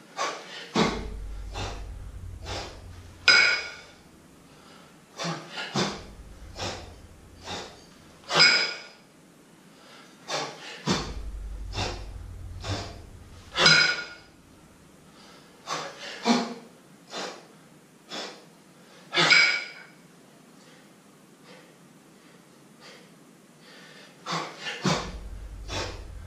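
Hard, rhythmic breathing of a man doing double-kettlebell jerks: a run of short, sharp breaths, with a loud, forceful exhale about every five seconds.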